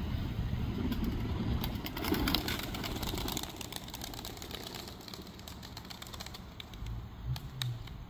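Iraqi tumbler pigeons taking off together from the loft: a flurry of wing claps and flapping from about a second and a half in to about three and a half seconds, with a few more claps near the end, over a steady low rumble.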